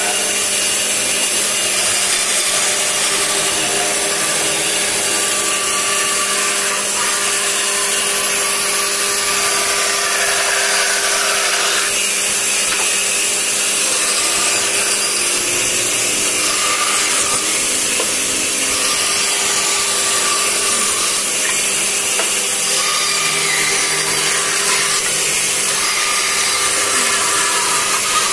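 Band saw running steadily, its blade ripping through a wooden cricket bat blank, over a constant low motor hum.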